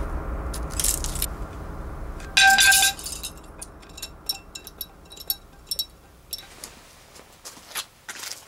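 A low steady hum fades out over the first three seconds. About two and a half seconds in comes a loud half-second burst with a ringing tone, then scattered light clinks and tinkles of broken glass.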